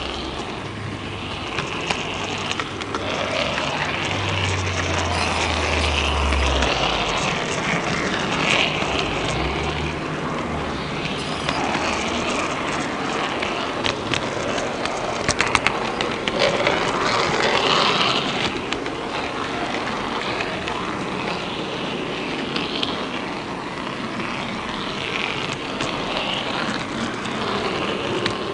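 16-gauge (1:80 scale) model train running along its track, heard from a camera riding on board: a steady rolling rumble and hiss of the wheels on the rails, with scattered sharp clicks and a quick cluster of clicks about fifteen seconds in.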